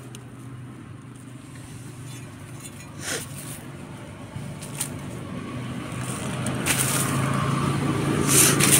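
A motor engine humming steadily, growing louder through the second half as if drawing nearer, with a few brief scrapes and crackles of hands digging in dry soil.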